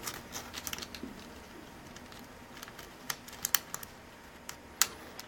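Faint, irregular clicks of typing on a computer keyboard, in small clusters with short pauses between.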